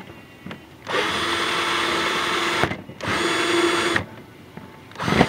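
Cordless drill running in two bursts, about two seconds and then about one second, as it bores a bolt hole through a metal window frame: a steady motor whine under the grinding of the bit. A short knock comes near the end.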